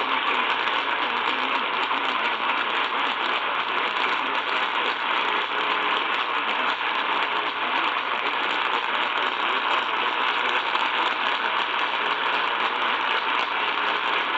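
AM radio static from a weak, distant signal: a steady hiss with fast crackle, with faint wavering traces of the station's audio buried in it.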